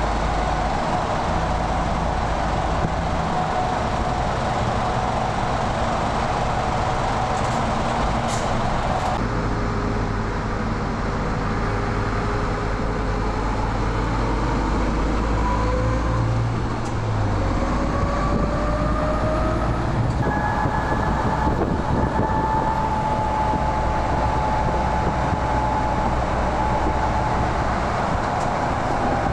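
MAN TGX 18.470 truck's six-cylinder diesel engine running under way, a steady low rumble with road noise, with tones that climb in pitch in steps through the middle as the truck pulls through the gears.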